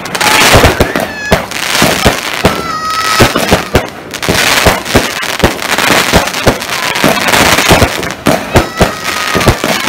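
Multi-shot New Year fireworks battery (salute cake) firing: a rapid, uneven series of bangs and crackles over a steady hiss, with a few drawn-out high tones among them.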